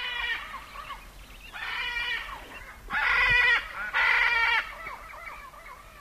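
Parrot calling: four loud, drawn-out squawks of under a second each, then softer short chirps.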